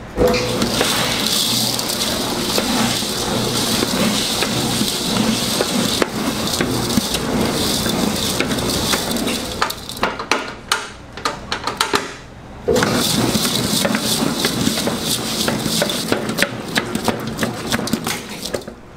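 Commercial dough mixer's hook churning sweet dough in a stainless-steel bowl, coarse pearl sugar crunching and rattling against the steel as it is kneaded in, over a low steady hum. The dense crackle thins to scattered clicks for a few seconds in the middle, then picks up again.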